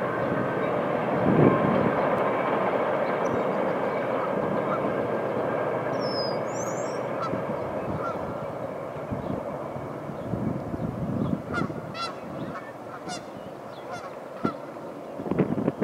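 Steady rumble of a Metra commuter train crossing a steel truss bridge, slowly fading as the train moves off. In the second half, several short waterfowl calls.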